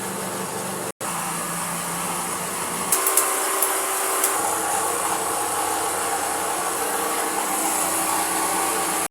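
Steady machine whirring with a low hum, cut off for an instant about a second in, the hum changing about three seconds in.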